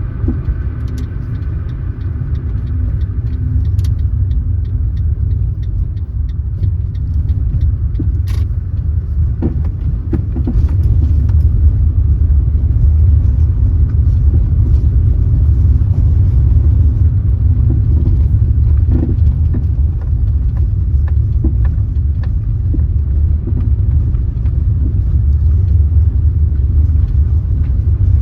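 A car driving along a road: a steady low rumble of road and engine noise, with a few small clicks and knocks. It grows louder about ten seconds in and stays at that level.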